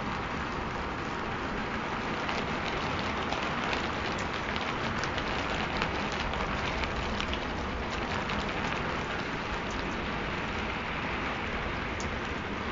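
Recorded rain falling steadily: an even hiss with many small drop ticks scattered through it. It serves as the masking track under which subliminal affirmations are embedded.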